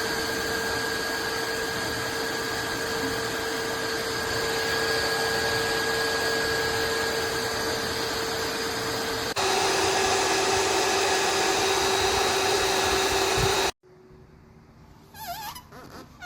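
Wet-dry floor vacuum's suction motor running with a steady whine. About nine seconds in, the whine drops in pitch and gets louder. It cuts off suddenly near the end.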